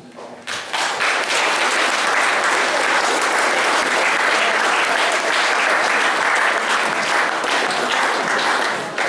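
Audience applauding. The clapping starts about half a second in, holds steady and begins to die away at the very end.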